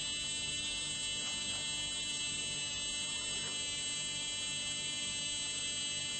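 Steady electrical whine: several high thin tones held unchanged over a low hum, with no distinct events.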